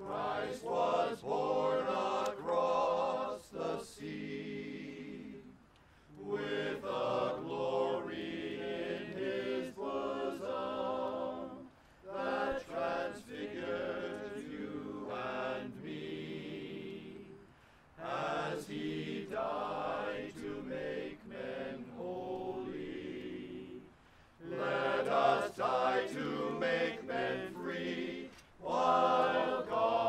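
Music in slow, sustained chordal phrases of about five seconds each, with a brief break between phrases, sounding choir-like.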